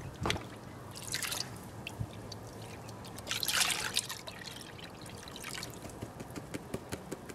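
Water sloshing and pouring off a plastic gold pan as it is dipped and tilted in a tub of muddy water while a gravel sample is panned down. Two louder pours, about a second in and around the middle, then dripping near the end.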